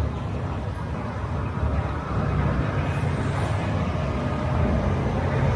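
City street traffic: a steady low rumble of passing vehicle engines, growing a little louder about two seconds in.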